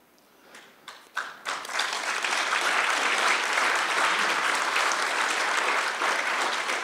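Audience applauding: a few scattered claps about half a second in, swelling within a second into steady applause.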